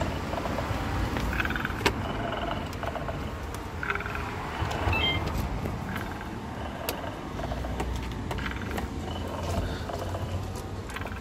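Golden retriever puppy growling at a plastic crocodile toy as it bites and paws it, with scattered sharp clicks and knocks of the hard plastic. A low steady rumble runs underneath.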